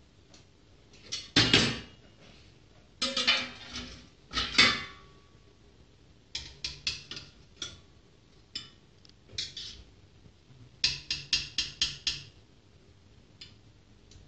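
Metal spoon clinking and scraping against a stainless steel stockpot and a metal dish as cooked potatoes and meatballs are lifted out of the broth. The clinks come in scattered clusters, with a quick run of about six taps near the end.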